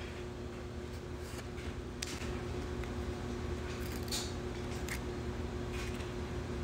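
Small plastic jars of nail gel handled in a cardboard box: a few light clicks and rustles, the sharpest about two and four seconds in, over a steady hum.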